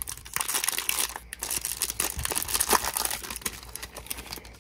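Foil wrapper of a Topps Update baseball card pack being torn open and crinkled by hand, the crackling dying down near the end.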